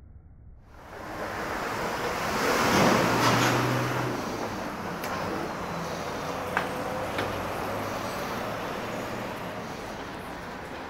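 City street traffic noise that starts abruptly about a second in: a steady rush of passing vehicles, swelling to its loudest around three seconds in, with a low engine hum and a few faint clicks.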